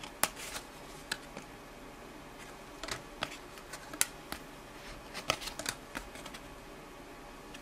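Trading cards being handled: scattered light clicks, taps and slides of card stock, a few at a time with short gaps between.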